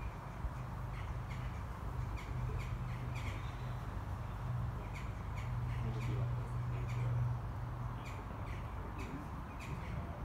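Jackdaws calling: short, sharp calls repeated again and again, at times about two a second, over a low steady hum.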